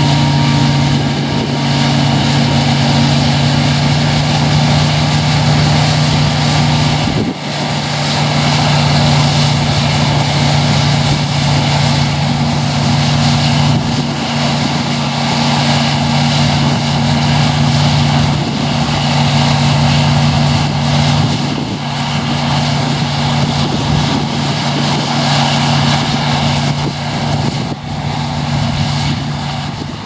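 New Holland CX8040 combine harvester running steadily while harvesting wheat: a constant low diesel engine hum under the rushing noise of its threshing machinery. The sound dips briefly once, about seven seconds in.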